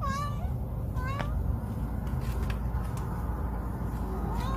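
Tabby cat giving short meows: one falling call right at the start, another about a second in, and a rising one near the end, over a steady low rumble.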